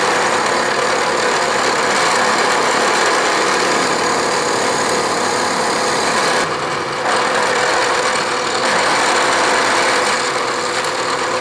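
Vertical milling machine taking a facing cut with a three-fluted carbide face mill across a metal block held in a vise: a steady, loud cutting noise with a constant hum, easing briefly a little past halfway.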